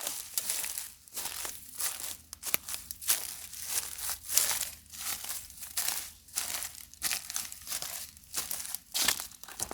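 Footsteps crunching on a loose, crackly surface at a steady walking pace, a little over two steps a second.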